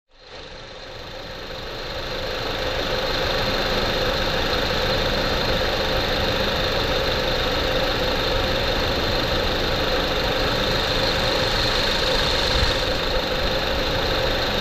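A 2014 Honda Civic Si's 2.4-litre four-cylinder engine running steadily, fading in over the first couple of seconds, with a steady high whine on top.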